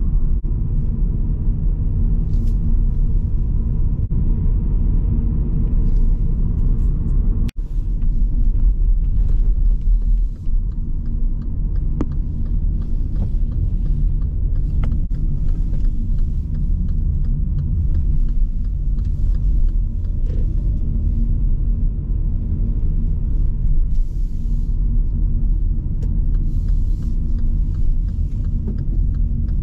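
Car driving slowly on town streets, heard from inside the cabin: a steady low rumble of engine and road noise.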